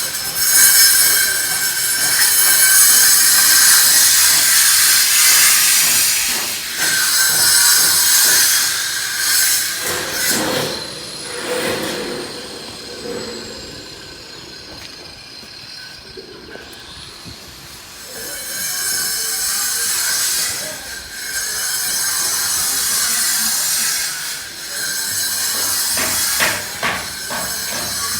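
Workers' power tool running with a loud, high-pitched hiss, in two long stretches with a quieter lull in the middle.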